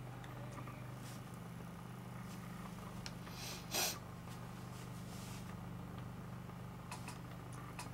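A person's short, sharp breath through the nose, a sniff, a little before four seconds in, over a steady low hum. A few faint ticks near the end.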